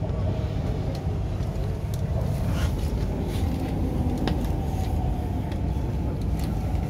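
MTR Island Line Q-Train running, heard inside the passenger car: a steady low rumble from the wheels and running gear, with a couple of light knocks.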